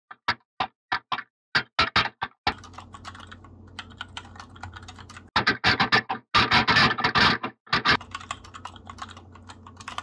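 Typing on a mechanical keyboard: a few separate key clicks at first, then fast runs of keystrokes in the middle, thinning out near the end.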